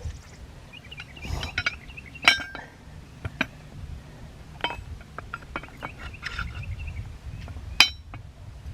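Metal three-point hitch parts (a bar, washers and brackets) clinking and knocking together as they are handled and fitted together by hand: a handful of separate sharp clinks with a brief ring, the loudest near the end.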